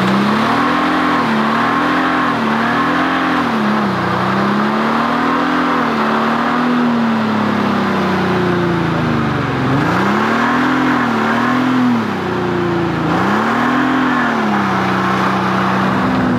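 Minivan engine revving hard, its pitch rising and falling again and again, while the tyres spin in place in a smoky burnout.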